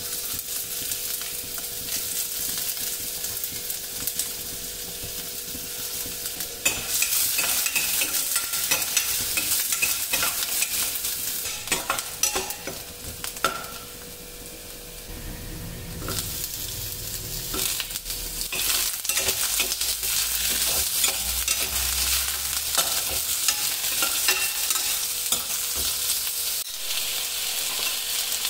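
Chopped onion frying in hot oil in a stainless steel kadai, sizzling steadily, with a metal ladle scraping and clinking against the pan as it is stirred. The sizzle grows louder about seven seconds in.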